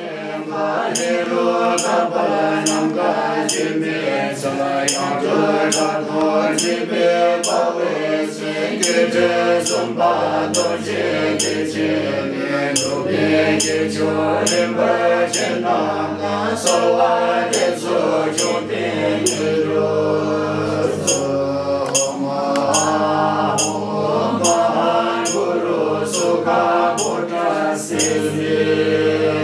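Background music: a chanted, sung melody over a steady percussive beat.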